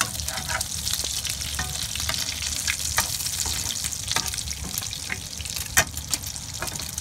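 Tuna omelette frying in oil in a pan: a steady sizzle with many scattered crackles and pops, and one sharper knock a little before six seconds in.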